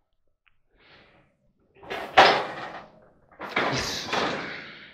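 Sheet-steel top panel of a White Westinghouse clothes dryer being lifted open: a sharp metal clank about two seconds in, then a longer stretch of metal rattling and scraping.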